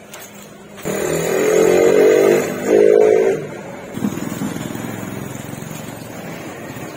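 Electric pressure washer's motor and pump running in two bursts, about a second and a half and then under a second, while the motorcycle is being foamed and washed. A knock follows, then a softer noisy wash.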